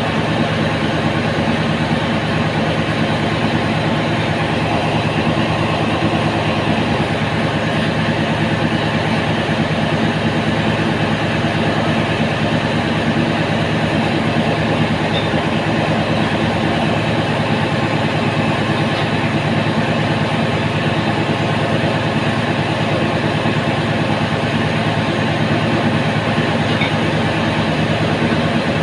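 Steady, loud drone of engine-room machinery running at constant speed, an engine-like hum with no change in pitch or level.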